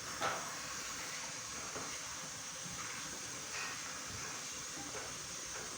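Steady hiss of background noise with a faint click about a quarter second in; no firework bangs.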